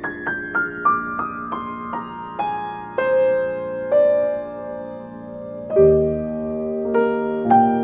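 Soft piano music: a falling run of quick single notes, a few slower held notes, then fuller chords with a low bass entering about six seconds in.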